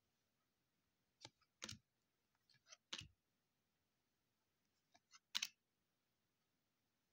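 Baseball cards being handled and flipped through by hand: a handful of short, sharp clicks and snaps of card stock, the loudest about five seconds in.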